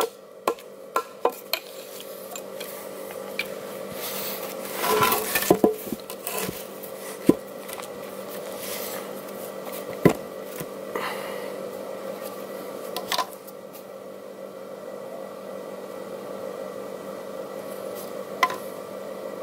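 Hatchet chopping into a red alder log, about two strikes a second for the first second and a half, then the hewn log being handled, with a burst of wooden clatter and a few single sharp knocks.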